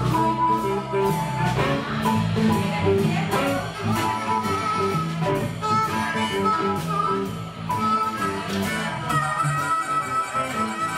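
Live blues band playing: a harmonica cupped against a microphone leads with long held notes over electric guitar, bass guitar and a steady drum beat.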